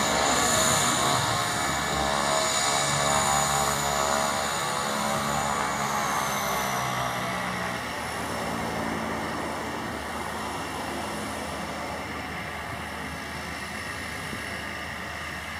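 Cessna 208B Grand Caravan's Pratt & Whitney PT6A turboprop running as the plane taxis, a high turbine whine over the propeller drone. About six seconds in the whine slides lower in pitch, and the whole sound grows gradually fainter.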